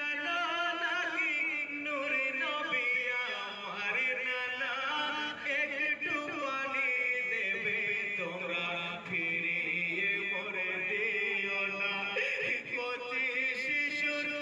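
Voices chanting a Bengali marsiya, a Muharram lament, in long melodic lines that slide up and down in pitch without a break.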